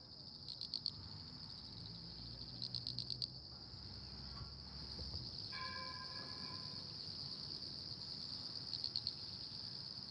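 Crickets chirping in a steady high trill, with louder bursts of rapid chirps near the start, around three seconds in, and near the end. A faint brief tone sounds about five and a half seconds in.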